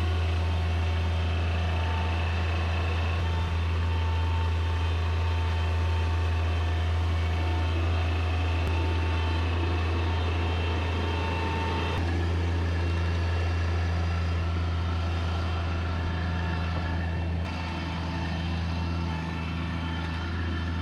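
A heavy engine running steadily at a constant speed, a deep even hum, easing a little in level near the end.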